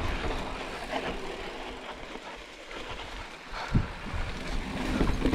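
Giant Reign 29 mountain bike rolling down rocky singletrack: tyre rumble and rattle of the bike over the trail. The noise eases off in the middle as the bike slows through a tight switchback, then picks up again with a sharp knock a little under four seconds in.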